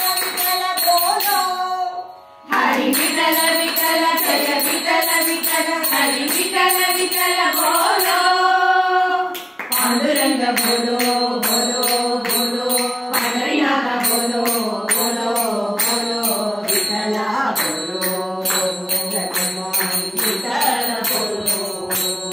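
Group of women singing a Hindu devotional bhajan in unison, keeping time with hand claps and small hand cymbals at about two strokes a second. The singing breaks off briefly about two seconds in and again near ten seconds.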